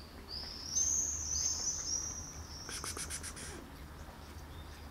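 A small bird chirping: a run of high, slurred notes, then a quick dry rattle of about half a dozen clicks, over a low steady hum.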